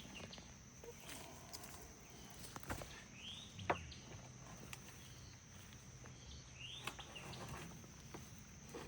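Faint garden ambience: a bird repeats a short call that rises and falls, about every three and a half seconds, over a steady high insect-like tone. Scattered soft knocks and rustles of hands working through soil, the loudest about three and a half seconds in.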